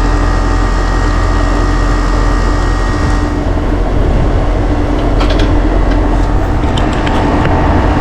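Outdoor air-conditioner condensing unit running, its compressor and condenser fan motor giving a loud, steady hum. A higher hiss over it stops about three seconds in, and a few light metallic clicks follow in the second half.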